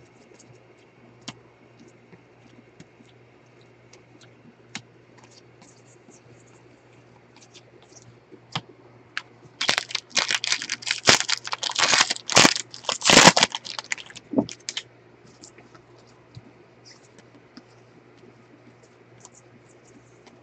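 A foil baseball card pack wrapper being torn open and crinkled for about five seconds, about halfway through. Before and after it, faint scattered clicks of cards being handled.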